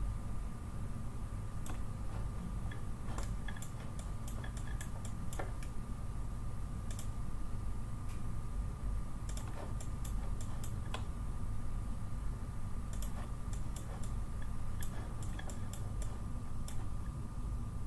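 Computer mouse clicking in irregular clusters of sharp little clicks, over a steady low hum and a faint steady high tone.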